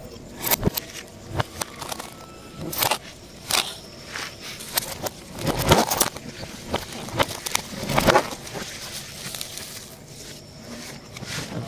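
Plastic cling film pulled off a roll and stretched and pressed by hand around a clay pot, crinkling and crackling irregularly.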